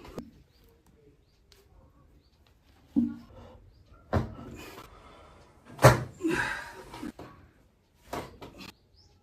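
Sharp cracks and thrusts of a chiropractic adjustment, four sudden ones a second or two apart, the loudest about six seconds in. Short vocal sounds from the patient come after a couple of them.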